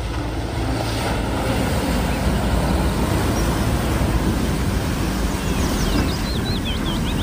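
Steady vehicle and traffic noise, a dense even rumble with no clear rhythm, with a few short bird chirps in the second half.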